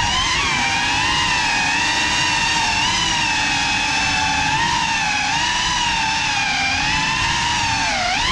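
Motors and propellers of a CineLog35 3.5-inch cinewhoop FPV drone whining steadily, the pitch wavering up and down with the throttle and dipping then climbing sharply near the end.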